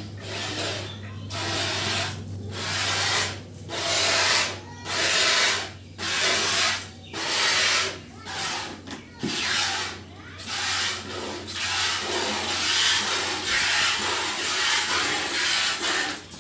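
Milk squirting from a cow's teats into a plastic bucket during hand milking: a hissing spurt with each squeeze, about one a second, the spurts running together for a few seconds near the end.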